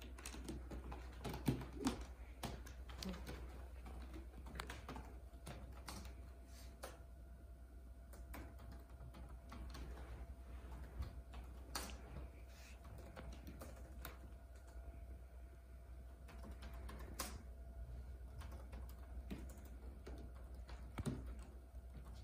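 A Persian cat's claws scratching at a rope-wrapped scratching post: faint, irregular rasping strokes and clicks as the claws catch in the rope, with a couple of sharper ones about two seconds in.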